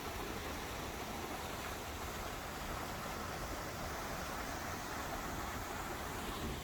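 Steady rushing of a stream's water flowing over rocks.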